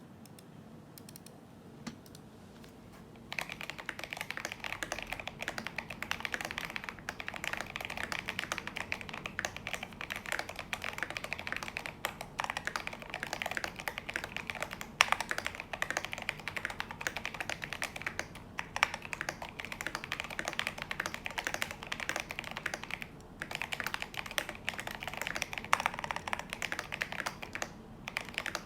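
Fast typing on a Drop CTRL mechanical keyboard with lubed Invyr Holy Panda tactile switches and MT3 keycaps, a thocky sound. The typing starts about three seconds in after a quiet start. It runs in quick streams broken by brief pauses, with one louder keystroke about halfway through.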